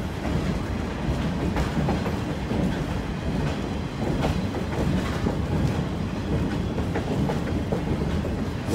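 Train hauled by Shay geared steam locomotives running along the track: a steady rumble with irregular clanks and knocks of the cars over the rails.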